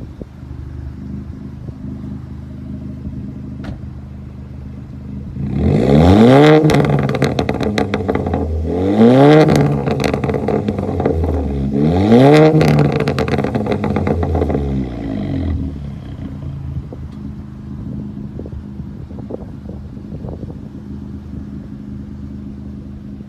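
Volkswagen Polo GTI's turbocharged four-cylinder engine, breathing through a custom non-resonated cat-back exhaust with the turbo muffler deleted, idling and then revved three times about three seconds apart. Each rev climbs quickly and falls back to idle, with crackles and pops on the way down from the performance remap.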